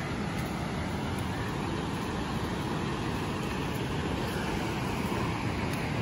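Steady rushing noise of a tall waterfall running very full, with no breaks or distinct strokes.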